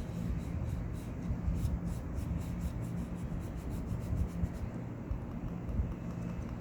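Logitech M590 silent mouse's muted buttons being clicked in quick succession, about five faint, soft ticks a second, easing off after about four seconds, over a steady low hum.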